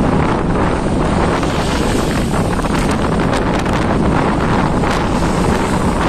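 Strong wind buffeting the microphone over the steady rush of storm waves breaking against a seafront wall and washing across the flooded promenade. The sound is loud and continuous, with brief gusts.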